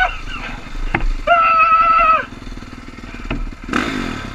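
Dirt bike engine revving in two bursts heard from the rider's seat. Each burst climbs, holds a high whine for about a second, then drops away over a steady low running note. A short clatter comes near the end.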